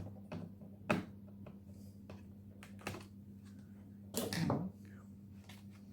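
Light clicks and taps of a screwdriver on the plastic base of a Dell Vostro laptop as the bottom-panel screws are undone: single sharp clicks about one and three seconds in, then a short rattling cluster a little after four seconds.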